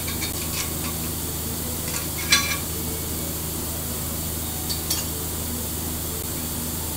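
Metal parts being handled and fitted at a milling machine vise: a few light clinks and knocks, the loudest about two seconds in and a quick pair near five seconds, over a steady low hum.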